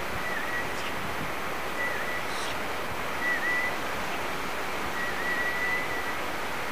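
Steady rushing hiss like outdoor wind noise, with a faint, thin high whistle that holds a note and dips briefly in pitch four or five times.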